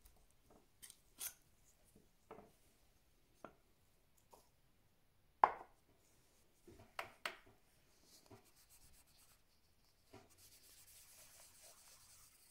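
Light, scattered clicks and taps of small silver watch case parts being handled and set down on a cloth-covered bench, the sharpest about five and a half seconds in. Near the end a soft, steady rubbing starts as the silver caseback is polished with a pad of Silvo metal-polish wadding.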